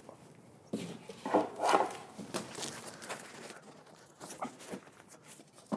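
Cardboard box and packing rustling and scraping as a flat shelf panel is handled at the box, in a few separate scuffs, the loudest about one and a half seconds in.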